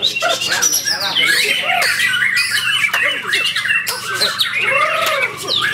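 White-rumped shama (murai batu) singing a fast, varied run of rising and falling whistles and chatter, with other birds calling over it at the same time.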